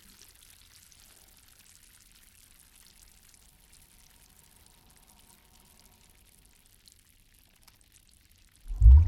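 Very faint water ambience, close to silence, then a loud rush of pouring, splashing water starts suddenly near the end.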